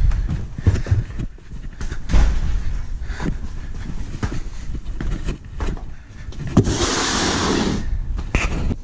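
Footsteps and knocks from a camera carried through a doorway and across a garage, with a brief rush of noise lasting about a second near the end.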